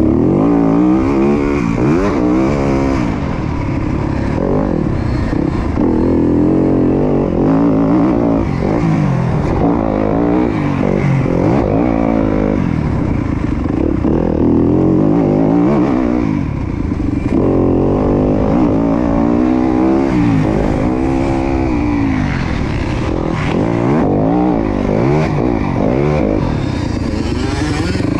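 Dirt bike engine revving hard, its pitch climbing and falling off again every second or two as it accelerates, shifts and backs off, with a brief dip in loudness about two-thirds of the way through.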